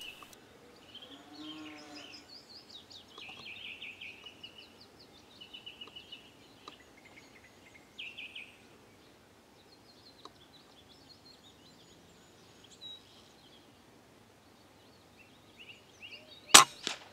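Small birds chirping and singing in the background. Near the end, one loud sharp crack of a Theoben MFR .22 pre-charged air rifle firing, with a second, fainter crack right after.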